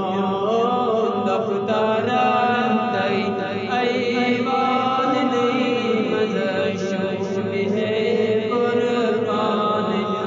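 Islamic devotional chanting: voices reciting in a sustained, wavering melodic line with no break.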